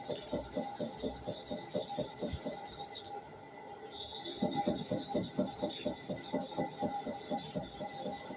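A hair clipper blade rubbed back and forth on an abrasive sharpening surface in quick, even strokes, about four or five a second, with a brief pause about three seconds in.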